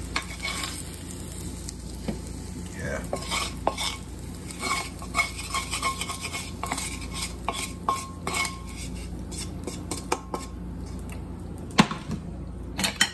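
Metal utensil scraping and clinking against a frying pan as fried duck eggs are lifted out onto a plate: many short ringing clicks, with two louder knocks near the end.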